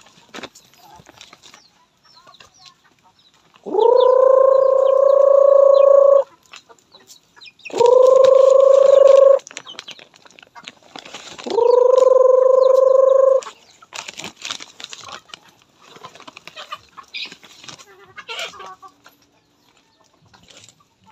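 A person calls the chickens to feed with a loud, drawn-out "brrrr" three times, each call held on one steady note after a quick upward slide. Clucking chickens and feed scratching fill the gaps between calls.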